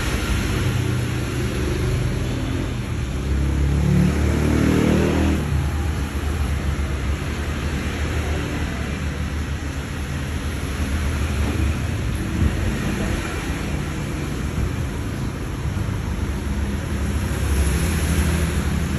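An engine running with a steady low rumble, its pitch rising briefly about four to five seconds in, as when revving.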